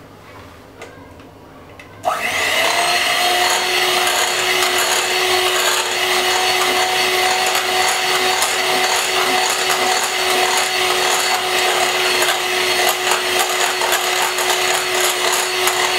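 Electric hand mixer switched on about two seconds in, its motor spinning up briefly to a steady whine and running with the beaters churning batter in a glass bowl.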